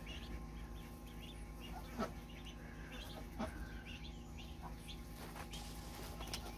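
Domestic ducklings peeping softly and repeatedly, short high calls overlapping throughout, with two light knocks about two and three and a half seconds in.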